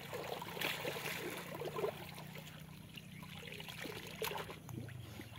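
Water splashing and trickling as a cast net is gathered by hand in shallow water and lifted, water streaming out of the mesh, in irregular small splashes.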